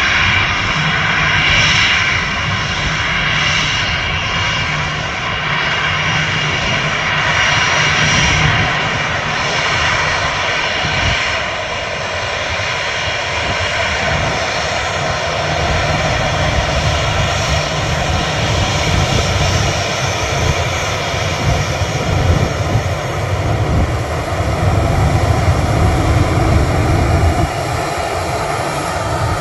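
Boeing 737 twin turbofan engines at takeoff thrust during the takeoff roll and lift-off: a loud, steady jet noise with a deep rumble underneath, growing a little louder near the end.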